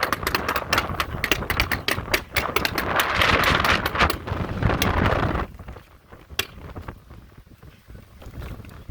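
Gusty wind buffeting the microphone, with rapid crackling clicks over it. The gust drops off abruptly about five seconds in, leaving fainter scattered clicks.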